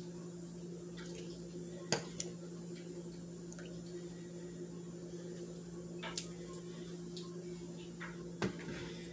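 Metal kitchen tongs clicking and knocking as they lift egg-washed chicken pieces out of a bowl: a few sharp clicks, the loudest about two seconds in and about six seconds in. A steady low hum runs underneath.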